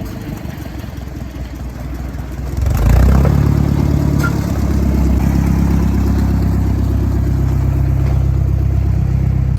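A motor vehicle's engine running steadily; it gets louder about three seconds in and then holds at that level.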